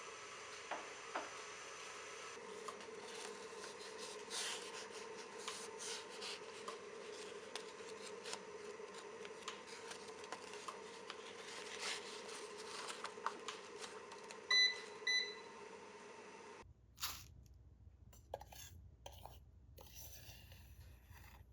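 A steady low hum with scattered light clicks and clinks, then two short electronic beeps about fifteen seconds in. The sound then changes abruptly to a quieter room with a few soft knocks.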